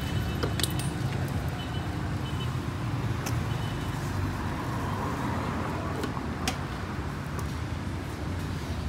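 A steady, low motor-vehicle rumble, with a few sharp metallic clinks over it.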